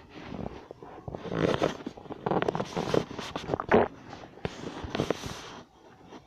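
Stomach growling, a long uneven growl with sharp clicks that dies away near the end.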